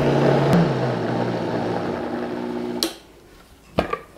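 Vitamix high-speed blender motor running steadily, churning cream that has just broken into butter and buttermilk. Its hum drops a little with a click about half a second in, then stops abruptly near three seconds, and a single short knock follows about a second later.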